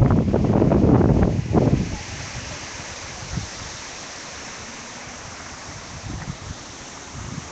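Wind rumbling and buffeting on a phone's microphone for about the first two seconds, then dying down to a steady outdoor hiss.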